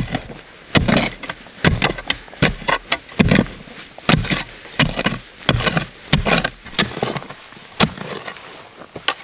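A hand tool striking over and over in a steady working rhythm, about a dozen heavy blows, each a little under a second apart.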